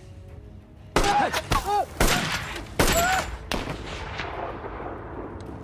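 War-film gunfire: about five loud rifle and machine-gun shots in roughly two and a half seconds, starting about a second in, then echoing and dying away.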